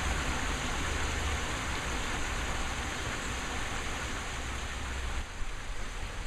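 Garden pond waterfalls splashing, a steady rushing of falling water, with a low rumble underneath that drops away about five seconds in.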